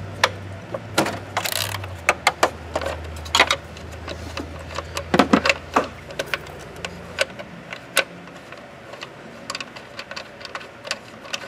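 Irregular small metallic clicks and clinks of a wrench and loose bolts as the two bolts holding a block-off plate on a car's intake manifold are undone and lifted out.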